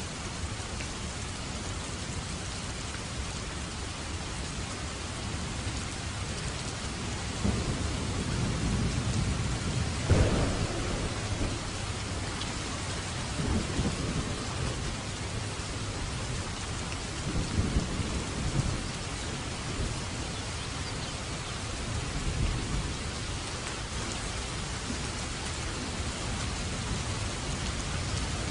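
Steady heavy rain hissing, with rolls of thunder rumbling low several times, the strongest crack about ten seconds in.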